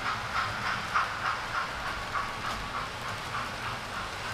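Model railway trains running close by: a low hum with a regular clicking about three to four times a second.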